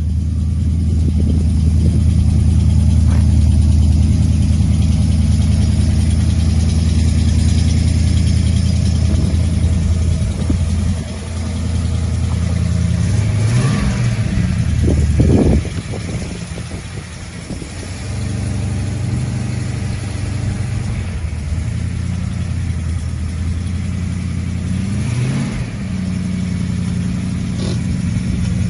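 1985 HDT VK Group A Commodore's 4.9-litre 304 V8 running loudly, at a steady note for the first third, then revved a few times with the pitch rising and falling, about halfway through and again near the end.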